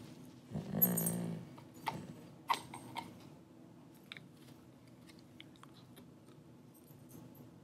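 Dog chewing a rawhide strip: sharp clicks and crunches of teeth on the rawhide, loudest in the first three seconds and fainter after. A short low sound comes about a second in, and there is a light jingle of metal collar tags.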